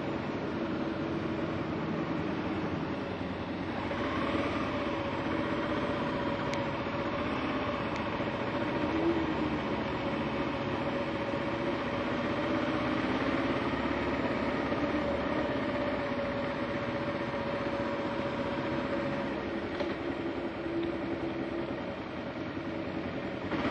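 2009 Kawasaki KLR 650's single-cylinder engine running at a steady pitch while riding, with wind and road noise.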